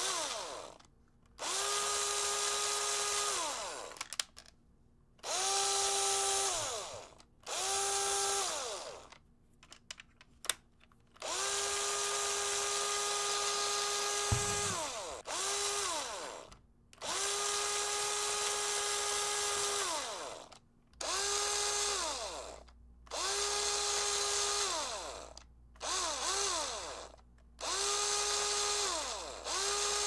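Black & Decker cordless drill driver with a screwdriver bit, spinning freely with no load. The trigger is pulled about a dozen times: each time the motor spins up quickly, runs at a steady whine for one to four seconds, then winds down with falling pitch when released. A few light clicks fall in the gaps between runs.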